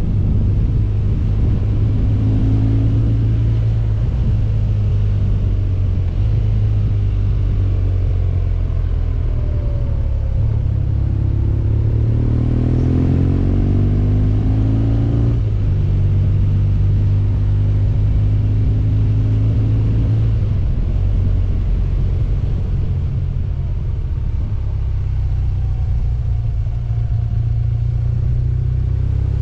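A 2011 BMW R1200GS Adventure's boxer-twin engine running steadily at road speed. Its note climbs from about eleven seconds in and drops back some four seconds later as the revs change.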